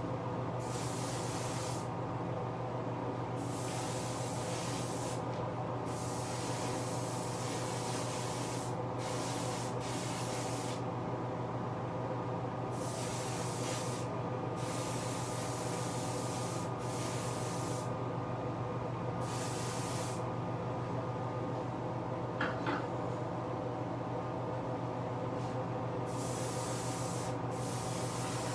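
Clear coat being sprayed onto model parts: a hiss that starts and stops in repeated stretches of one to several seconds as the spray is triggered, over a steady motor hum. A short sharper sound comes about two-thirds of the way through.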